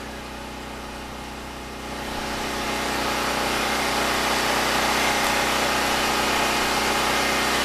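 Predator 6500 generator's single-cylinder engine running at a steady speed, growing louder about two seconds in and then holding steady.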